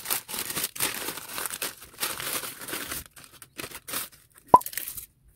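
Bubble wrap and a plastic mailer bag crinkling and rustling as a bubble-wrapped item is pushed into the bag, thinning to scattered crackles as the bag is pressed flat. One sharp click near the end.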